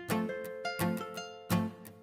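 Background music of plucked string notes, played in a bouncy run of separate notes that each ring and fade.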